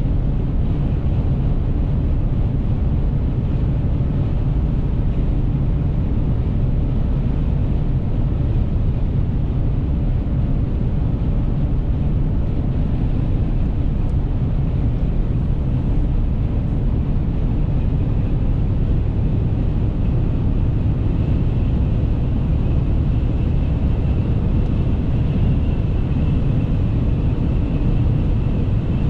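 Inside the cab of a Dodge Ram 1500 with the 5.7-litre Hemi V8 at high autobahn speed: a steady low engine drone under tyre and wind noise, as the truck slowly gains speed.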